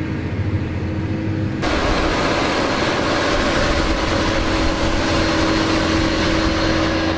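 Heavy tractor engine running steadily while pulling an offset disc harrow through soil. About a second and a half in, the sound changes abruptly to a louder, noisier mix of engine drone and rushing noise.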